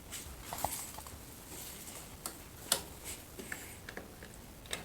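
Faint scattered clicks and taps of hands working around a 1953 Ferguson T30 tractor, the sharpest about two and a half seconds in; no starter cranking is heard, as the starter button does nothing.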